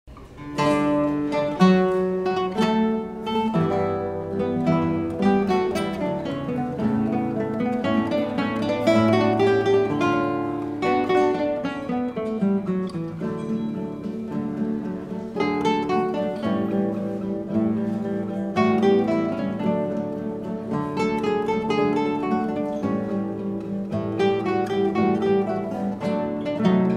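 A sextet of classical guitars playing together, with many plucked notes in several interlocking lines. It starts about half a second in and runs continuously.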